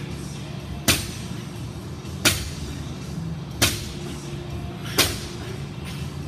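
A 255-lb barbell's weight plates striking the floor at the bottom of each deadlift rep: four sharp impacts about 1.4 seconds apart, over background music.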